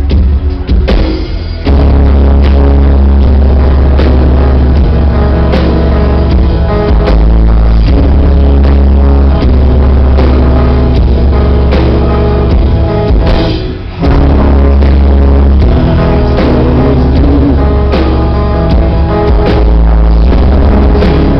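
Live rock band playing loud, with electric guitar, bass and drums, recorded distorted from the crowd. The music drops away briefly twice: in the first second or so and about two-thirds of the way through.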